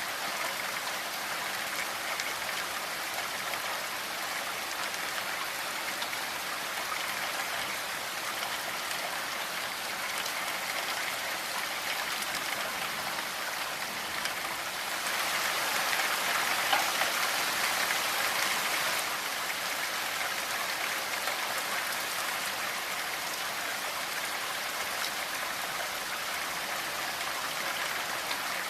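Steady rain, a dense hiss of many falling drops, swelling louder for a few seconds about halfway through.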